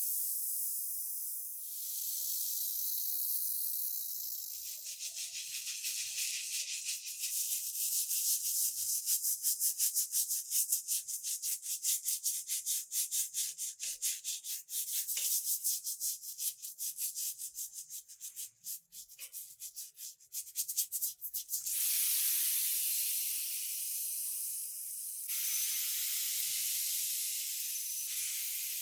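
Steady high spraying hiss, then a long run of rapid abrasive rubbing strokes, several a second, as a model car part is sanded, then steady spraying hiss again near the end.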